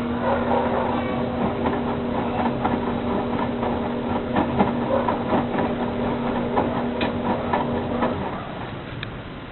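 Electrolux LE 750 washing machine running: a steady motor hum under a dense clatter of clicks and rattles, which stops about eight seconds in.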